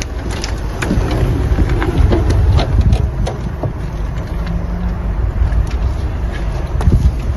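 A wheelchair being rolled up a ramp into a wheelchair-accessible van: a steady low rumble with scattered clicks and knocks of the chair and the van's fittings.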